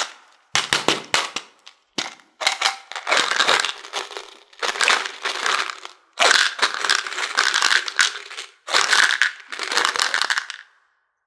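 Small candy-coated chocolates pouring out of a plastic bottle into a plastic toy bathtub, clattering in about five rattling bursts with short pauses between.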